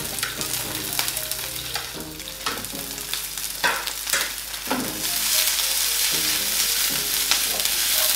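Diced onion and garlic sizzling in hot oil in a small nonstick frying pan, being sautéed, with a few sharp stirring strokes. The sizzle grows louder about five seconds in.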